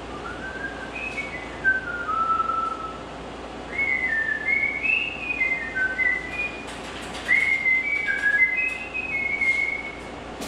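A man whistling a melody in three short phrases, with clear single notes stepping up and down.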